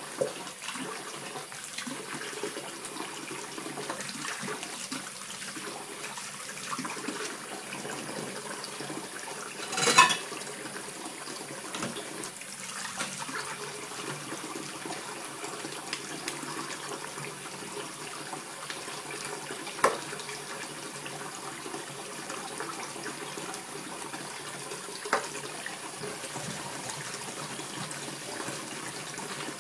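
Kitchen tap running steadily into a stainless steel sink during washing up, with a few sharp knocks; the loudest comes about ten seconds in.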